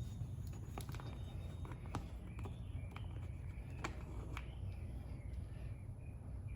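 Flathead screwdriver prying at a wall outlet's cover plate: scattered light clicks and scrapes, most of them in the first half, over a low steady hum.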